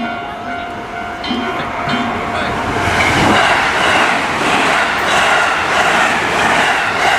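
A train runs through the railway level crossing, getting loud about three seconds in and staying loud with a dense rushing noise. A steady ringing tone is heard before the train noise swamps it.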